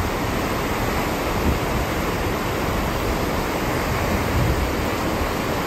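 Steady rushing of water churned up in a ship's wake, mixed with wind.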